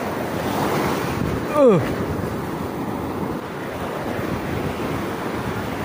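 Surf washing in over a sandy beach, with wind buffeting the microphone. About a second and a half in there is a brief cry that falls steeply in pitch.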